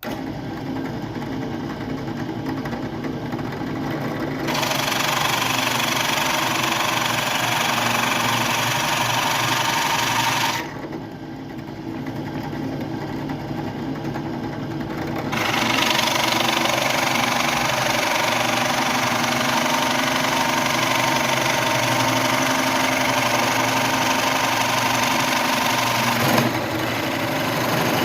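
An electric woodworking power tool running steadily, with a louder hiss joining the motor twice: from about four to ten seconds in and from about fifteen to twenty-six seconds in.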